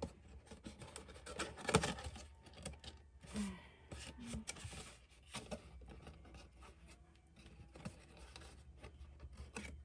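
Stiff patterned cardstock being folded, squashed and tucked by hand: scattered faint rustles, scrapes and taps of paper, the loudest about two seconds in.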